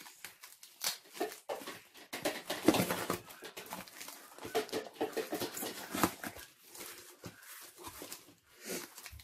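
Clear packing tape and plastic wrap being peeled and torn off a cardboard parcel box, crackling and crinkling in irregular bursts, then the cardboard flaps rustling as the box is opened.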